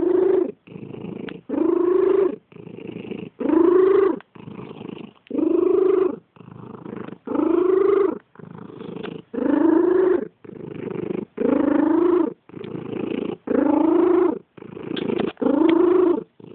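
Domestic cat purring with a wheeze on every breath: a louder pitched wheezing phase whose tone rises and falls, alternating with a quieter raspy phase, about one breath every two seconds.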